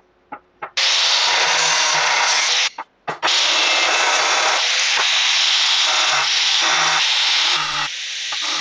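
Angle grinder's cut-off disc grinding through square steel tube. A few light clicks come first, then the cutting runs in two stretches with a short break about three seconds in, and it drops lower near the end.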